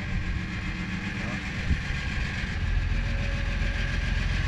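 An engine idling steadily, a low pulsing drone with a steady hiss above it, getting somewhat louder a little past halfway.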